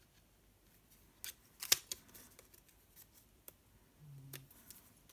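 A few sharp clicks and light taps, the loudest about a second and a half in, from a thin metal pick tool and a vellum die-cut butterfly being handled while a clear adhesive dot is fitted.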